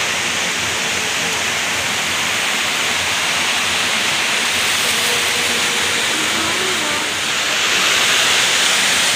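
Steady rushing of flowing water, an even hiss without breaks.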